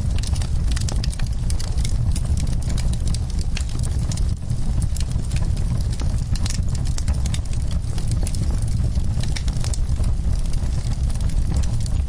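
Wood fire crackling, with frequent sharp pops and snaps over a steady low rumble.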